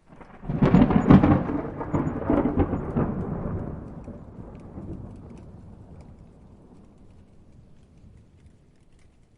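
A thunderclap: sharp cracks for the first few seconds, then a long rolling rumble that fades away.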